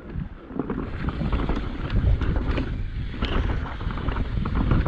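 Wind buffeting the microphone and mountain bike tyres rolling over dry, loose dirt, with scattered clicks and rattles from the bike. It gets louder about a second in as speed picks up.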